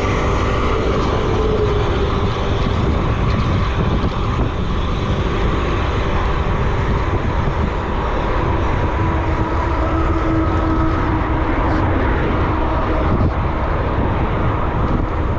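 Steady rushing wind and road noise during a ride, with faint humming tones that drift slowly in pitch.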